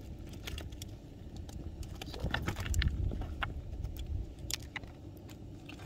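Fishing gear being handled while a small rainbow trout is landed: irregular sharp clicks and light rattles over a low rumble that swells about two to three seconds in.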